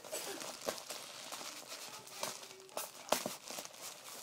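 Plastic mailer bag crinkling and rustling as it is handled, with scattered sharp crackles.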